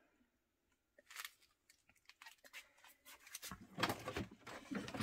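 Faint handling noise of plastic craft storage bins and paint bottles: a few light clicks, then a busier rustling and clattering from about three and a half seconds in.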